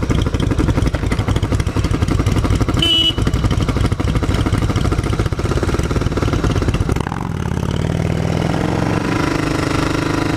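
Motorcycle engine running while riding, its firing pulses rapid and steady; about seven seconds in the sound eases into a smoother, steadier run as the bike slows. A brief high tone sounds about three seconds in.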